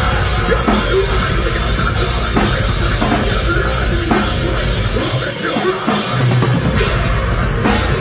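Metalcore band playing live at full volume: heavy guitars with pounding drums and cymbals, one steady wall of sound.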